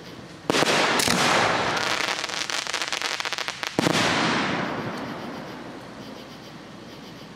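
Aerial firework shells bursting overhead: two sharp bangs about half a second apart, then a rapid run of crackling pops. Another bang comes a little past the middle, and its rumble fades away over about two seconds.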